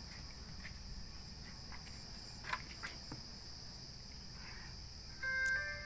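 Crickets chirring steadily in a continuous high-pitched drone, with a few soft handling clicks about halfway through. Near the end a short electronic melody of stepped tones begins.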